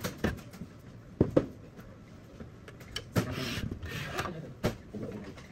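Metal UPS chassis being handled on a workbench: a few sharp knocks, two close together about a second and a half in and another near the end, with a stretch of scraping and rubbing in between.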